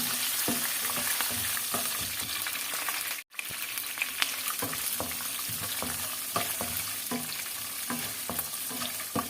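Peanuts and chilies frying in hot oil in a pan: a steady sizzle with frequent small clicks and pops, broken by a brief gap about a third of the way in.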